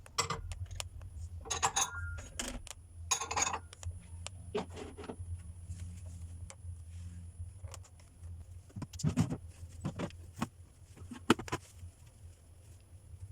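Scattered clinks, taps and short rustles of small hard objects being handled, over a steady low hum.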